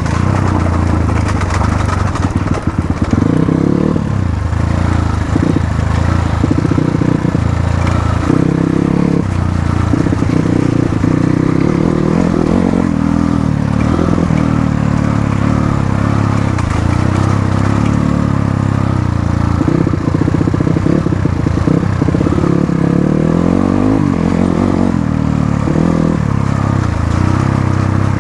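Motorcycle engine running under way, its pitch rising and falling repeatedly as the throttle opens and closes, with a few knocks and rattles from the bike about two to three seconds in.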